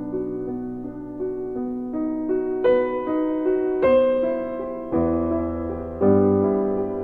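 Background piano music: soft notes in a slow melody over held deeper bass notes.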